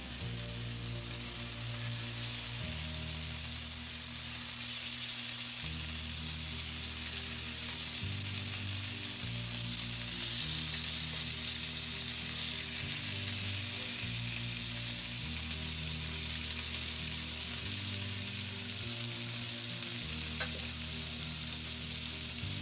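Pieces of pork sizzling in hot peanut and canola oil in a preheated cast iron skillet, a steady hiss of frying. Soft background music with slow-changing low notes plays underneath.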